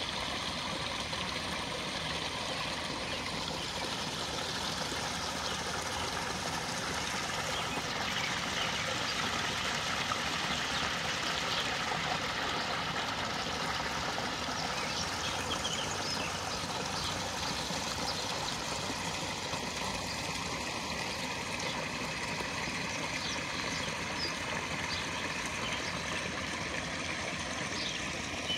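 Small rock waterfall splashing steadily into a koi pond, with scattered light pops and slurps from koi sucking floating food pellets at the surface, more of them in the second half.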